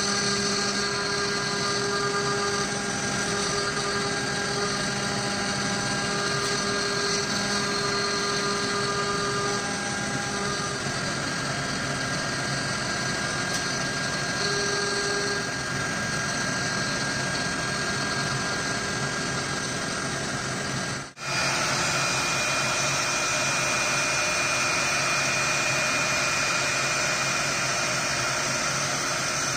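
CNC router spindle running steadily with a straight bit milling a pocket into a wood block, the whine of the spindle over the hiss of the cut. About two-thirds through the sound cuts out for an instant and comes back with a different, higher set of tones as a V-bit carves narrow lines.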